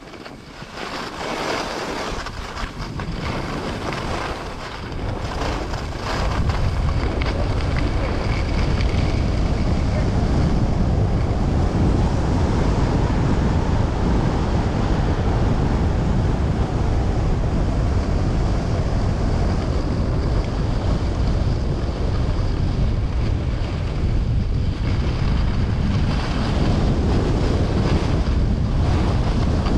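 Wind buffeting the microphone, a rushing rumble that grows louder about six seconds in and then stays strong.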